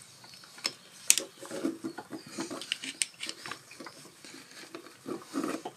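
Irregular small clicks, taps and rustles of hands working a carburetor into its rubber intake boot on a two-stroke dirt bike, a few sharper knocks among them.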